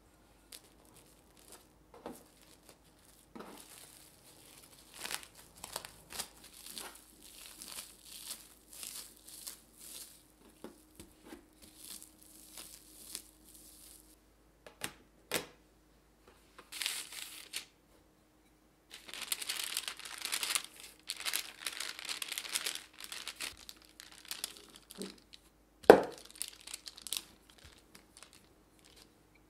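Plastic cling wrap crinkling and rustling as it is folded around a lump of cocoa tart dough and the dough is pressed flat with a wooden rolling pin: many short crackles, with a denser stretch of crinkling in the second half. A single sharp knock near the end is the loudest sound.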